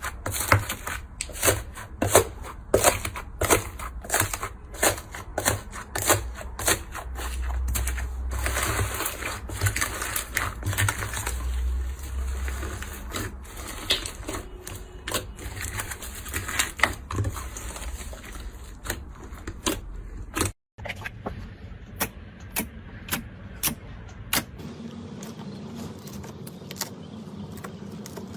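Slime being pressed and stretched by hand, making a run of sharp clicks and pops, with a denser squishing stretch about ten seconds in; the sound drops out briefly about twenty seconds in, then the clicks come more sparsely.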